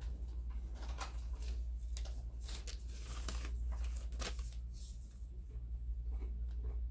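Paper store receipt rustling and crinkling as it is unfolded and handled: irregular short crackles over a steady low hum.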